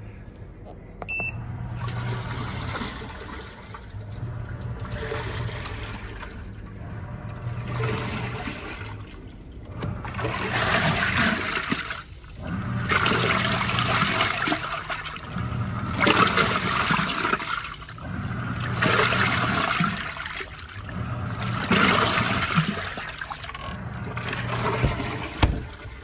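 Rovsun portable washing machine starting its wash cycle: a short beep about a second in, then the motor humming in pulses of two to three seconds with short pauses between them, and water sloshing around in the tub with each pulse. The sloshing grows louder about ten seconds in.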